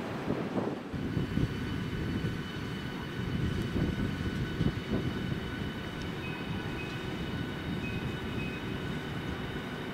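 Southeastern Class 395 Javelin electric multiple unit pulling slowly into the platform: a low rumble of wheels on rails, with several steady high whining tones from its electric traction equipment setting in about a second in.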